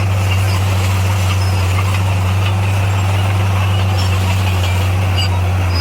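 Motor grader's diesel engine running steadily at a constant low hum, with no change in pitch.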